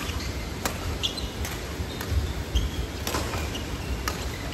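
Badminton doubles rally: four sharp racket-on-shuttlecock hits spread about a second apart, with short squeaks of shoes on the court floor and a steady low hum of the hall.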